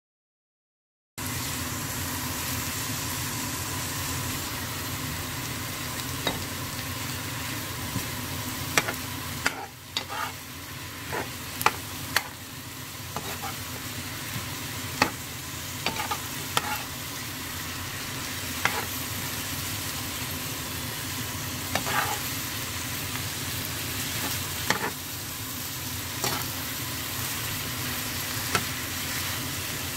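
Squid and chopped vegetables sizzling in a hot frying pan as they are stir-fried, starting about a second in, with a slotted turner knocking and scraping against the pan about a dozen times at irregular intervals.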